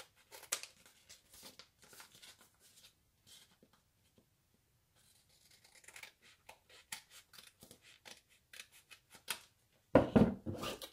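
Scissors snipping through the paper of a printed chip bag, a run of short cuts, a pause of about a second, then another run of cuts as the border strip is trimmed off. Near the end there is a louder rustle of paper as the bag is picked up.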